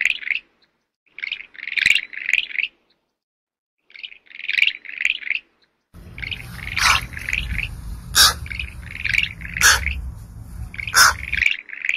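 High-pitched chirping calls in short clusters of several quick notes, repeating about once a second with brief pauses, and a few sharp clicks. Low wind-like rumble underneath through the second half.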